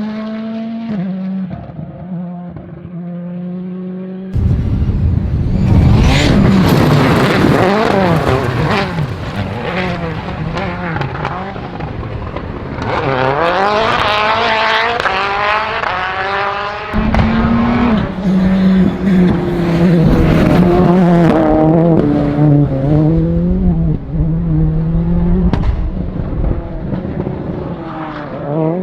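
Turbocharged World Rally Car engines revving hard and changing gear as the cars go past, with sharp pops and bangs from the anti-lag system. The sound changes abruptly about four seconds in and again about seventeen seconds in, as one car gives way to another.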